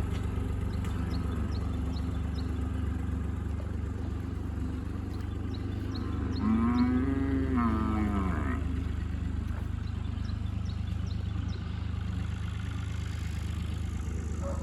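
A cow mooing once, about halfway in: one long call that rises and then falls in pitch. A steady low engine hum runs under it.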